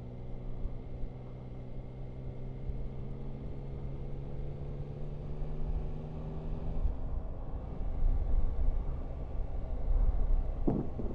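Motorcycle engine running under way with a steady, slowly rising note and wind rumble; about seven seconds in the engine note drops away, leaving a louder low wind and road rumble.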